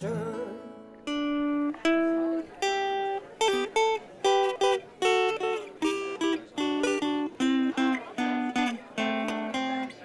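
Guitar playing a single-note picked melody in an instrumental break between sung lines of a song: a few slow notes, then quicker runs of notes.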